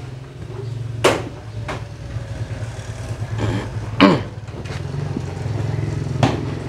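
Hand tap and tap wrench recutting a stripped M10 × 1.25 bolt thread in metal, giving four sharp metallic clicks, the loudest about one and four seconds in. Under it a small engine runs steadily.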